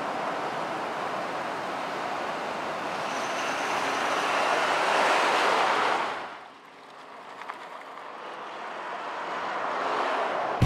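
2020 Ford Super Duty F-250 pickup truck driving on an asphalt road: a rushing tyre and road noise that swells, drops away suddenly a little after halfway, then builds again as the truck comes close.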